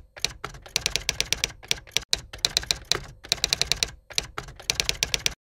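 Typewriter sound effect: rapid key clacks in several runs with short pauses between them, stopping suddenly near the end. It accompanies on-screen text being typed out letter by letter.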